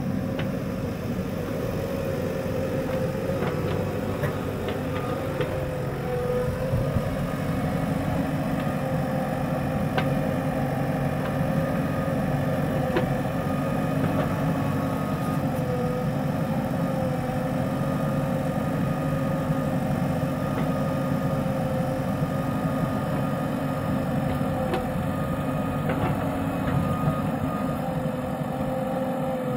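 Diesel engines of a Mahindra 475 DI tractor and a JCB 3DX backhoe loader idling steadily together, with a few faint clicks.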